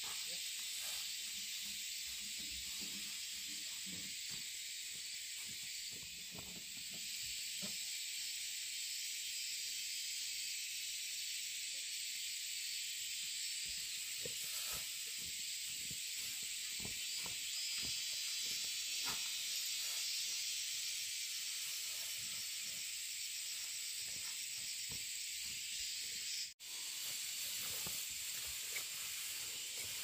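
A steady high hiss with faint scattered taps and rustles beneath it, broken off for a moment near the end.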